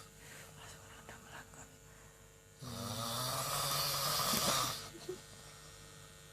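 A sleeping person snoring: a quieter stretch, then one loud snore lasting about two seconds that starts about two and a half seconds in.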